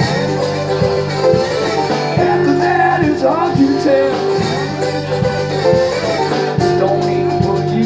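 Live piano accordion and guitar playing a Cajun-style tune together, the accordion holding the melody over a steady strummed beat, with no words sung.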